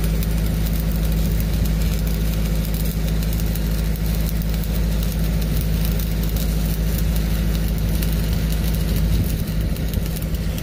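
Stick-welding arc crackling as a 3/32 8018 low-hydrogen rod is run uphill on a pipe-to-flange joint, over the steady drone of a Lincoln Pipeliner 200D diesel engine-driven welder running under load.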